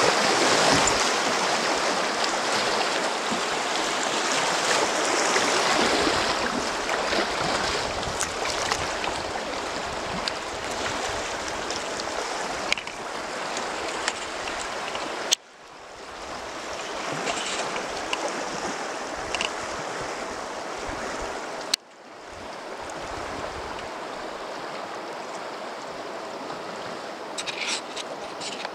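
River water rushing in a shallow riffle, slowly easing as the current calms. Twice, at about 15 and 22 seconds in, a sharp click cuts the sound out briefly before the water swells back, and a few light ticks come near the end.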